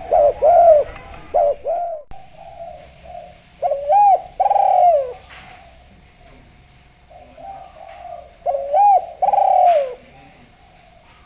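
Spotted dove (derkuku) cooing. Phrases of short coos end in a longer, drawn-out note that falls in pitch, and the phrase repeats twice about five seconds apart.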